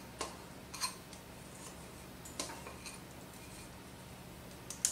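A few faint, scattered clicks and scrapes of a metal cookie scoop working dough in a small bowl, over a low steady hum.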